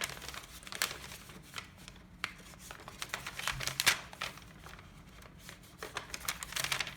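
Origami paper rustling and crinkling in short, irregular scrapes and snaps as a folded bird base is handled and its creases reversed into mountain folds, with the sharpest crackle about four seconds in.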